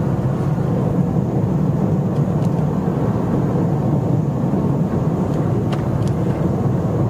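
2012 Ford Fiesta driving along, its engine and tyre noise heard from inside the cabin as a steady low rumble, with a few faint ticks.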